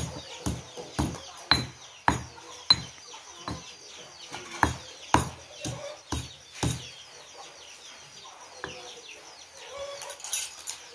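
Wooden-handled pestle pounding in a heavy stone mortar, sharp knocks at about two a second, stopping about seven seconds in.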